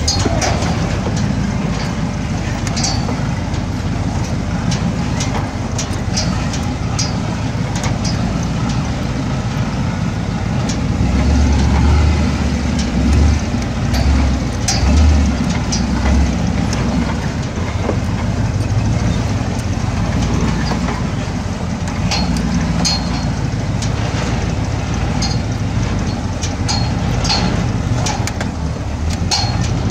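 A 4x4 crawling slowly over a rocky dirt trail: the engine runs steadily at low speed while the tyres crunch over stones, with frequent clicks and knocks from rocks and the body. A deeper rumble swells a few times about a third of the way in.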